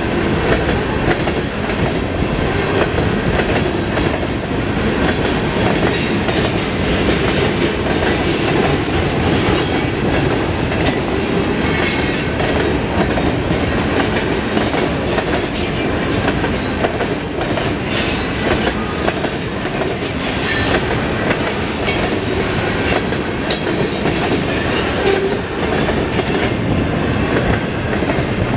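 Freight cars rolling past close by: centerbeam flatcars loaded with lumber, then double-stack container cars near the end. Steel wheels rumble steadily on the rail and clickety-clack over the joints, with a few short wheel squeals.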